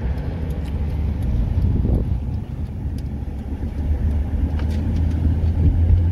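Steady low engine and road rumble heard from inside a moving vehicle's cabin as it drives along.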